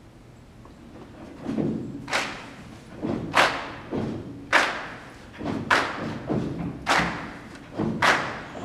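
Choir clapping in a steady rhythm, a sharp clap about once a second with a low thud between claps, starting about a second and a half in.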